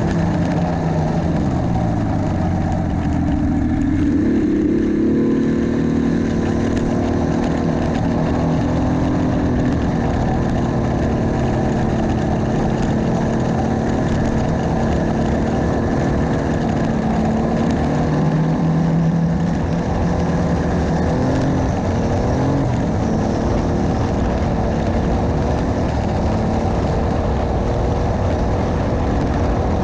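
Snowmobile engine running steadily. Its pitch drops and then climbs again in the first few seconds, then holds with small changes.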